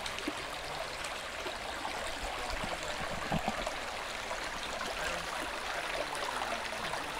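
Shallow, rocky brook babbling steadily as the water runs over stones.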